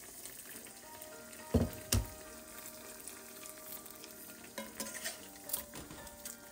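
Chicken and cabbage stew bubbling and sizzling in a wide metal pot. Two sharp knocks on the pan come about a second and a half in, and a few lighter clicks come near the end.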